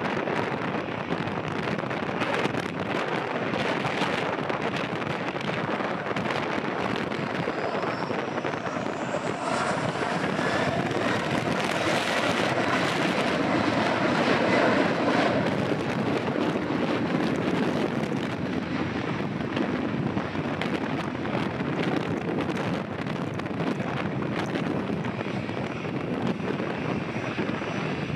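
Boeing 737 jet engines spooling up to takeoff power, a whine rising in pitch about a third of the way in, the roar loudest as the airliner rolls past about halfway through, then easing as it heads away down the runway. Wind buffets the microphone throughout.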